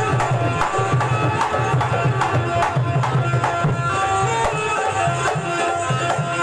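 Instrumental Indian folk-devotional music: tabla and dholki drumming in a steady, fast rhythm under held melody notes from an amplified Indian banjo (bulbul tarang).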